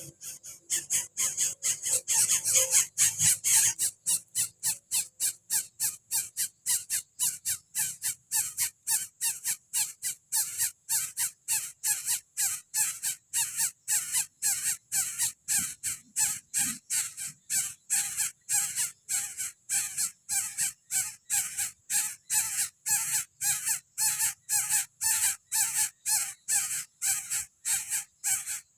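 Coucal nestling giving a fast, even series of short raspy begging calls, about three a second.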